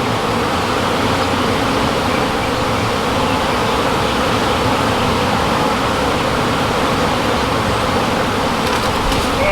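A mass of honeybees buzzing in a steady, dense hum as their colony is opened up and its comb pulled out.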